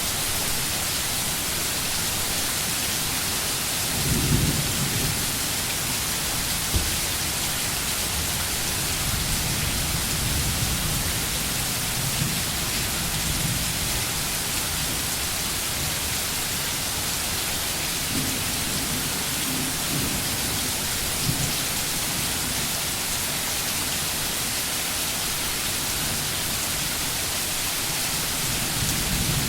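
Steady rain falling, an even hiss throughout, with low rumbles of thunder rising out of it several times, the strongest about four seconds in.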